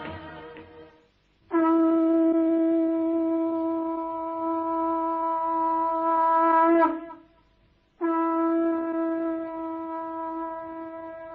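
Conch shell (shankha) blown in two long, steady blasts of about five seconds each, with a short break between them.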